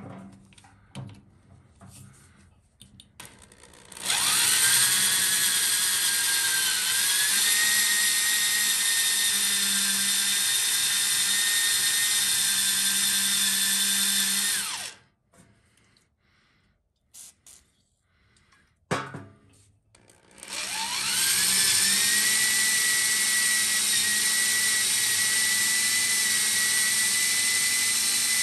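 Electric drill boring into the hardened steel bearing press ring on a car's rear axle shaft: a steady high whine that rises as the motor spins up about four seconds in, stops after about ten seconds, and starts again about twenty seconds in. A few light clicks come before the first run.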